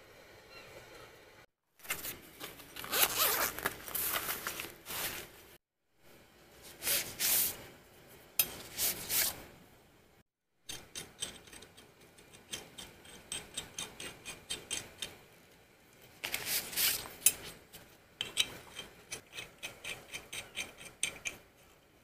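Camping gear being handled, in short cut-together takes: several loud zip-like rasps in the first half, then a run of quick light clicks and rubbing as aluminium legs are screwed into a wooden pole stand. The sound cuts out abruptly a few times.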